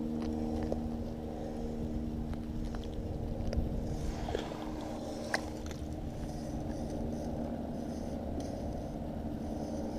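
A small engine running steadily in the background, a constant droning hum. A few sharp clicks and scrapes of gloved hands handling gear close by, the loudest about five and a half seconds in.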